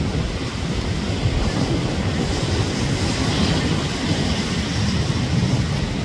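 Ocean surf breaking on a sandy beach: a steady low rumble, with a brighter hiss of a wave washing in through the middle.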